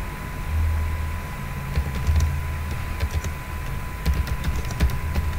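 Typing on a computer keyboard: scattered key clicks that begin a couple of seconds in, over a steady low hum.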